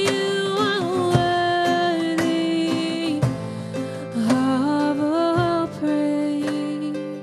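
Worship song: a voice holding long notes that slide between pitches, over a rhythmic instrumental accompaniment.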